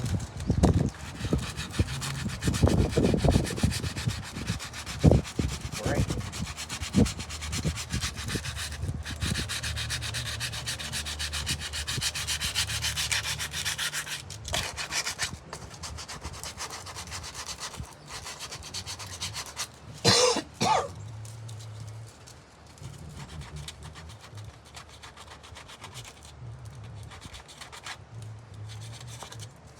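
Abrasive rubbing back and forth over Bondo filler on wooden trim, in quick repeated strokes with some knocks early on. A short louder sound breaks in about twenty seconds in.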